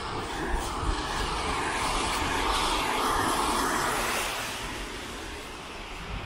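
A car passing close on wet asphalt, its tyre hiss swelling and then fading away about four and a half seconds in.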